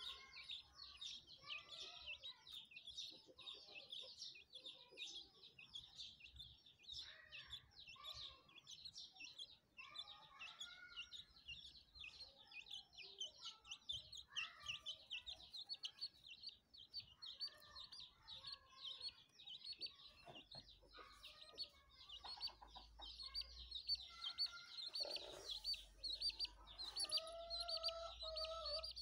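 Chickens clucking now and then over a continuous, rapid, high-pitched chirping. A longer call with a clear pitch comes near the end.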